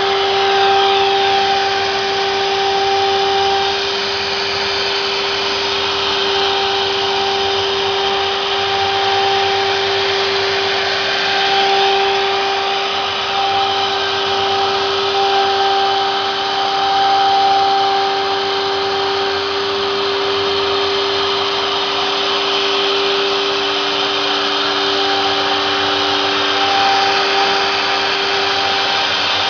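CNC wood router machining, its spindle giving a steady high whine over the steady hiss of the dust collector and the vacuum hold-down pump, all running together.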